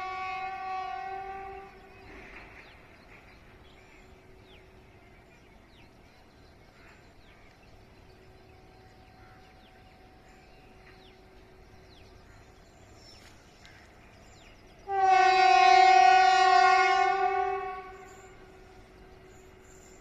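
Locomotive horn of an approaching passenger train: the tail of one blast fades out about two seconds in, then after a faint steady tone of the same pitch comes one long, loud blast of about three seconds near the end.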